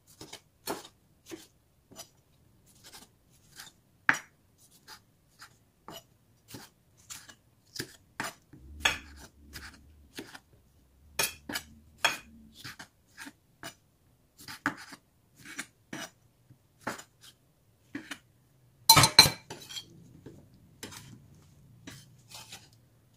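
Chef's knife cutting tomatoes on a wooden cutting board: short, irregular taps of the blade striking the board, about one or two a second, with a louder clatter a few seconds before the end.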